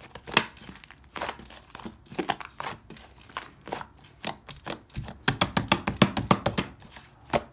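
Slime being squished and pressed by hand: a run of short sticky clicks and pops, coming thick and fast about five to seven seconds in.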